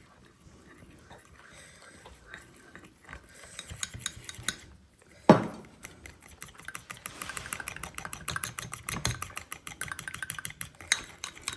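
Light clinks of a spoon against a pot, one sharp knock about five seconds in, then rapid, even stirring with the spoon clicking against the pot's sides as a flour-and-water mix is stirred into hot porridge to keep it from going lumpy.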